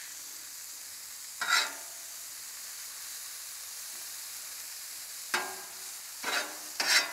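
Onions, peas and carrots sizzling in butter on a Camp Chef flat-top griddle, a steady hiss. A metal spatula scrapes across the steel once about a second and a half in and three more times near the end as the vegetables are spread out.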